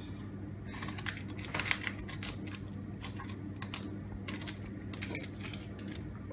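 Dry, papery shallot skins crackling and a small paring knife ticking against the bulb as a shallot is peeled by hand: quick, irregular clicks and crackles over a steady low hum.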